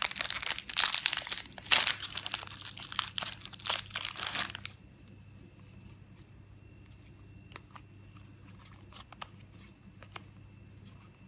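Foil Magic: The Gathering booster pack wrapper crinkling as it is torn open for about four and a half seconds. After that come a few faint clicks of the cards being handled and leafed through.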